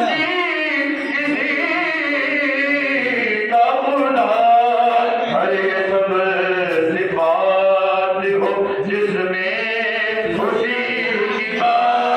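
Group of men chanting a devotional zikr in praise of Ali, singing together in long held notes, phrase after phrase.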